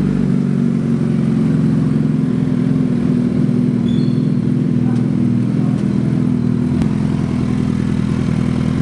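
Suzuki Hayabusa's inline-four engine running steadily at low revs, an even drone with no revving.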